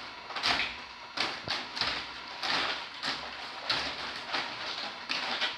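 Clear PET plastic clamshell containers being handled and tossed, crinkling and clattering in quick, irregular bursts about every half second to a second.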